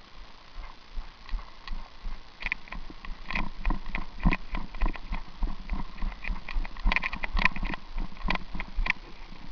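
An irregular run of sharp clicks and knocks, a few a second, growing busier in the second half.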